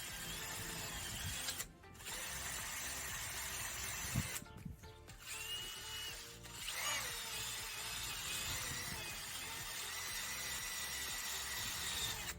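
Power drill running in several spells, briefly stopping about two seconds in and again around four and a half seconds in, as it cleans corrosion off a battery cable bolt.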